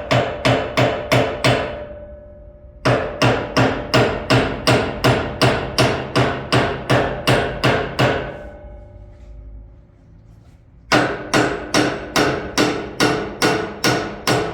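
Hammer blows on the metal of a carpet cleaning machine, a steady run of about three strikes a second, each ringing briefly. The hammering stops twice for a moment and starts again.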